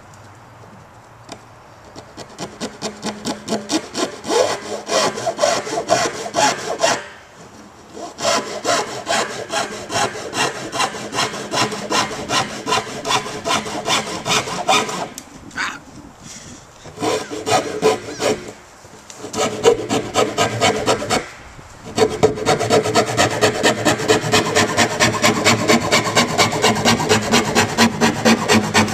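Bare hacksaw blade, held in a rag, sawing back and forth through the top of a 55-gallon plastic barrel. The rhythmic strokes come about two a second, stop briefly a few times, then settle into a faster, even pace of about three a second for the last several seconds.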